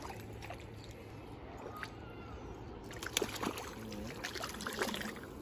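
A hooked fish splashing at the water's surface as it is reeled in toward the bank, with a run of sharp, irregular splashes in the second half.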